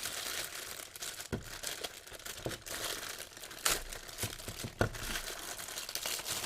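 Packaging crinkling and rustling as the drive's power adapter is unwrapped by hand, with a few sharp clicks along the way.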